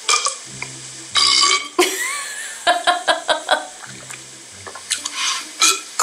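A man burping several times in low, drawn-out belches. A quick run of sharp clicks comes about halfway through.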